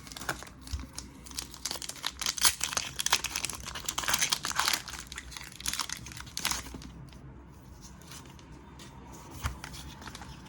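Foil booster-pack wrapper crinkling and being torn open, a dense run of crackles lasting about seven seconds, then only a few light clicks.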